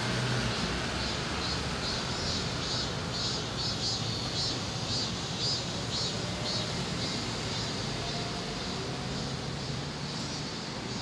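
Street traffic: a minivan driving away and a car passing, over a steady low rumble, with a high chirping repeating about twice a second through the middle.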